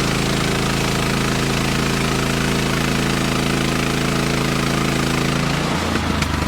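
Portable band sawmill's small gas engine running steadily at speed, with its note dropping lower near the end.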